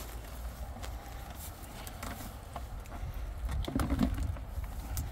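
Wind rumbling on the microphone, with scattered light taps and knocks and a slightly louder muffled stretch about four seconds in.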